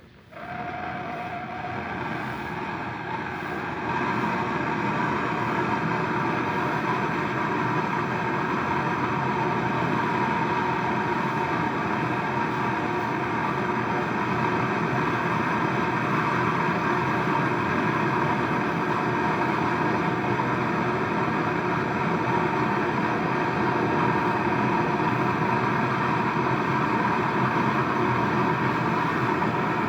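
Gas brazing torch burning with a steady rushing hiss, heating a refrigerator compressor's copper pipe. It starts quieter and builds over the first few seconds as the flame is opened up, then holds steady.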